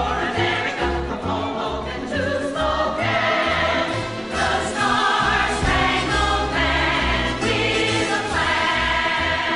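Female chorus singing a 1940s-style patriotic show tune with band accompaniment over a steady, bouncing bass beat.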